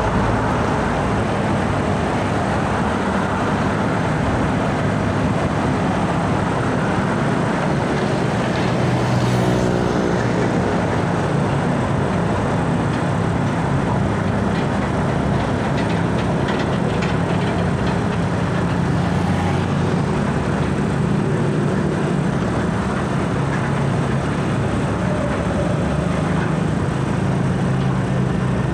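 Heavy diesel tanker trucks running close by as they roll slowly past, over steady road traffic noise.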